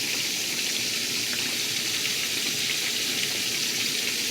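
Pork chops sizzling in a frying pan: a steady hiss of fat frying with fine crackle.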